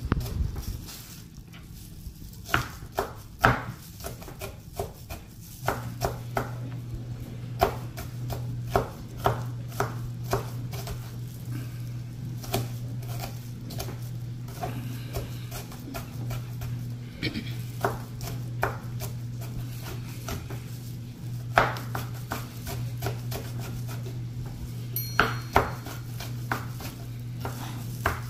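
Kitchen knife chopping green bell pepper and onion on a wooden slab cutting board, the blade knocking on the wood in uneven strokes. A steady low hum sits under it from about six seconds in.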